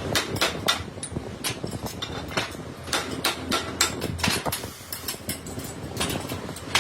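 Metal being struck repeatedly, hammer knocks and clinks at an irregular pace of about three or four a second, over a steady workshop clatter.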